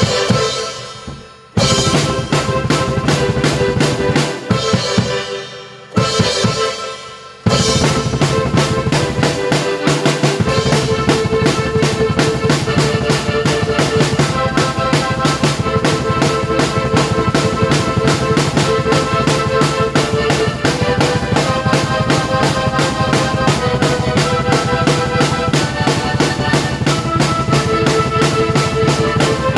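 Drum kit played together with a keyboard. It opens with a few loud accented hits that ring out and die away, then settles into a steady, busy groove of bass drum and snare under held keyboard notes from about seven seconds in.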